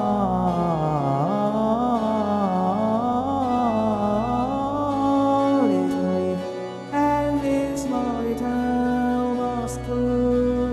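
Electronically synthesized Baroque-style orchestra with a VOCALOID computer-generated baritone voice: a sung line winds up and down in a long run for about the first six seconds, then gives way to steadier held notes with quicker accompanying figures.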